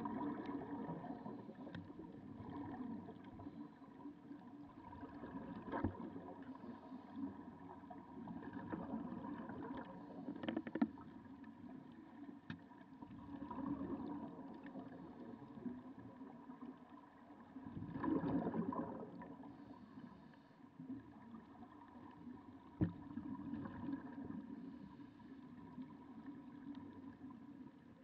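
Muffled underwater sound of snuba regulator breathing, the exhaled bubbles coming in swells every few seconds over a faint steady hum, with a few sharp knocks.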